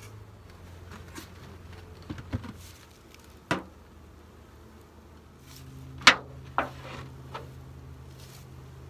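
Beehive lids and wooden covers being lifted off and set down: a handful of sharp knocks and clunks, the loudest about six seconds in, over a low steady hum of honey bees.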